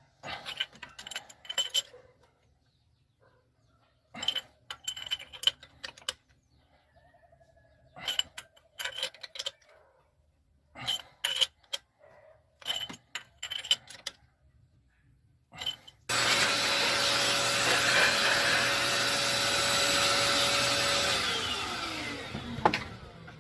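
Short bursts of rapid clicking from a hand tool, about two seconds apart. Then a small electric power tool's motor runs loudly with a steady whine for about five seconds, and its pitch falls as it spins down and stops.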